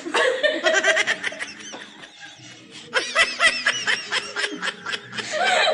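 Women laughing hard in runs of quick breathy ha-ha pulses: one burst at the start, another about three seconds in, and more near the end.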